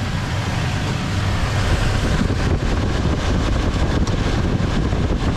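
Toyota Tacoma's V6 engine idling, heard from under the truck, just after an oil change. From about two seconds in there is rustling noise on the microphone as well.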